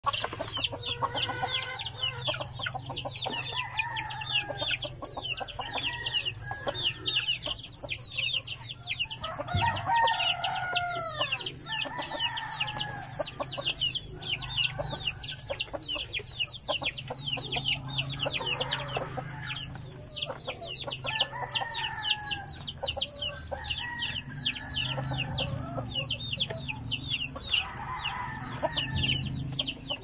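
Flock of chickens, laying hens, clucking and calling over a steady chorus of quick high chirps, with one louder, longer call about ten seconds in.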